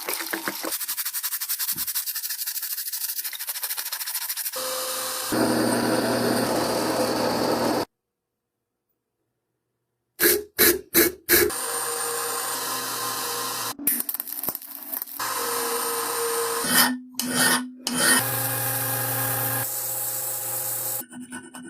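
Workshop abrasive work in a series of short clips: rubbing, sanding and filing, with a power tool running in some of them. About 8 seconds in there is a short stretch of dead silence.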